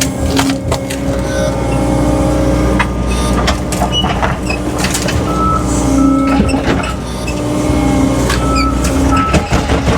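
John Deere skid steer's diesel engine running under load, its pitch rising and falling as it works, with repeated knocks and clatter of shed debris. Short high beeps come in pairs near the middle and near the end.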